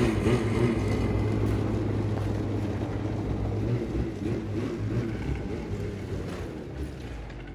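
Snowmobile engine running as the sled drives off across packed snow, a steady low engine note that grows gradually fainter as it moves away.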